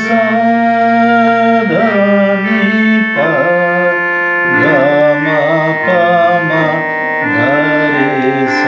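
Casio electronic keyboard set to its harmonium tone, playing a slow melody over a held low drone note, in the reedy sound of a harmonium.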